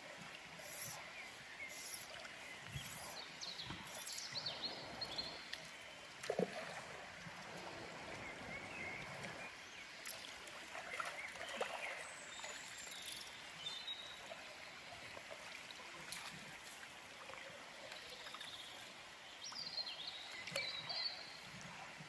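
Flowing river water, with splashing as a small wild brown trout is played on a fly line and drawn into a landing net, and a few short bird chirps.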